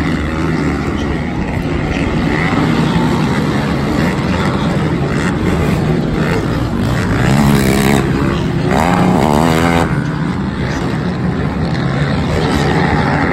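Racing quad engines running hard at the track, their revs rising and falling. About two-thirds of the way through, one engine's note swings quickly up and down as it is revved on and off the throttle.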